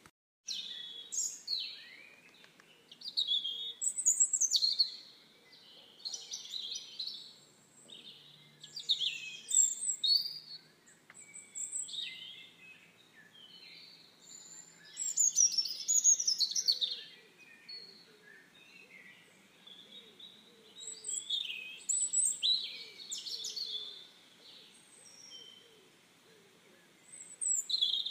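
Songbirds chirping and calling in quick, varied phrases, some notes sliding down in pitch, in bursts every second or two.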